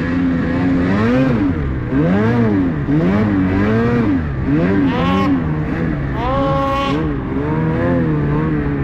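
Ski-Doo 850 two-stroke snowmobile engine revving up and down about once a second as the rider works the throttle through deep powder, with the revs held high for about a second near the middle.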